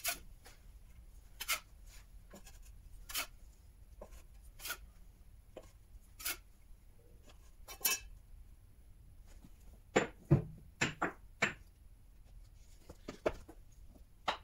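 Damp sawdust briquettes being handled and set down on wooden boards and shelving: light single knocks about every second and a half, then a quicker run of louder knocks about two-thirds of the way in.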